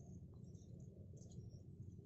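Near silence: faint outdoor ambience, a steady low rumble with scattered faint high chirps.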